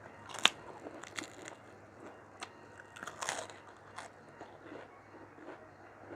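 Close-miked eating sounds of a person chewing mutton curry and rice: wet mouth clicks and smacks at irregular intervals, the sharpest about half a second in and a short burst of them around three seconds.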